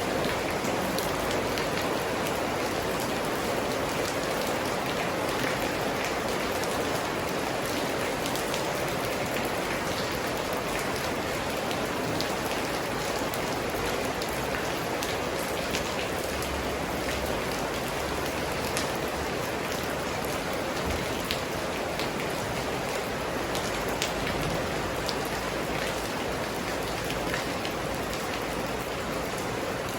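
Steady rain falling, a dense continuous patter with scattered individual drops ticking on surfaces.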